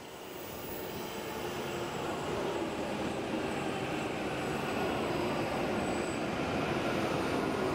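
E7 series Shinkansen train pulling into the station past the listener. Its running noise rises over the first two or three seconds and then holds steady, with a hum of several steady low tones under the rush.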